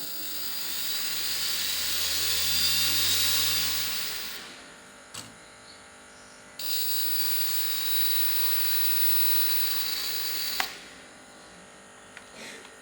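Electric motors of a home-built RC helicopter, driven through two ESCs, spinning up with a high whine that builds for about four seconds and winds down. After a pause of about two seconds a second steady whine starts suddenly and cuts off with a click about two seconds before the end.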